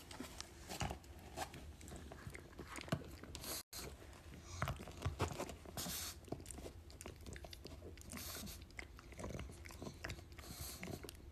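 A pug gnawing on a chew stick: irregular small crunches and wet mouth clicks as it bites and works the stick.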